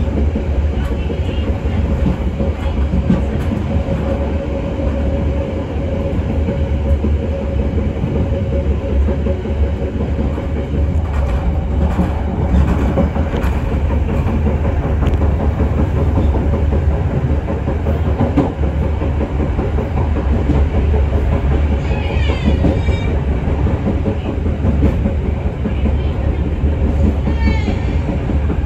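Passenger train coaches running along the rails, heard from the rear of the train: a steady heavy rumble with clattering wheels, and two brief high squeals, one past the middle and one near the end.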